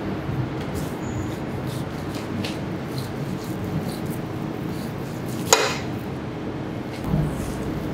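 Butcher's knife slicing and trimming fat from a wagyu beef cut on a wooden board, over a steady low hum. A sharp clink about five and a half seconds in, and a softer thud a little before the end.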